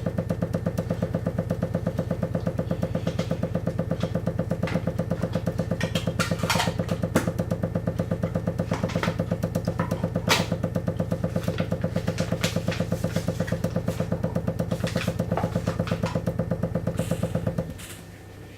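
Water hammer in the pipework feeding a dripping tap: a rapid, even juddering pulse in the pipes with a steady low hum, broken by a few sharper clicks. The tap's drip has sped up with the boiler running and set up a cycle of hammering. It stops abruptly near the end.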